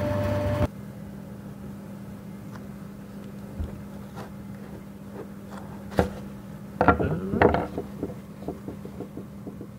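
Light clicks, taps and rustles from handling a cut-open fuel filter: a metal rod prodding the canister and its pleated paper element being pulled out and unrolled, with one sharper tap about six seconds in and a flurry of handling noise just after. A loud steady hum cuts off abruptly under a second in, leaving a quieter low hum underneath.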